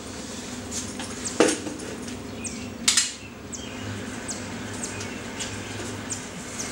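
Clinks and knocks of homebrew gear being handled: hose fittings and a valve at the kettle being set up for sparging, with two sharper knocks about one and a half and three seconds in.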